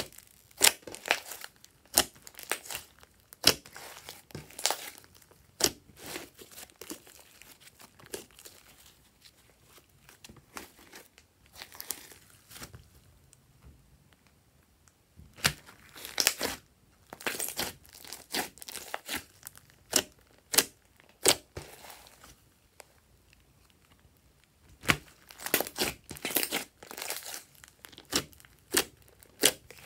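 Slime being kneaded, pressed and pulled by hand, crackling and popping as air pockets burst, with many sharp clicks in clusters separated by a few short quiet spells.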